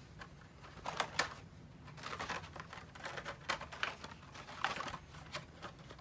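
Plastic blister packs of toy diecast cars clicking and rustling as they are handled, pulled from plastic baskets and set down one after another, in irregular light clicks.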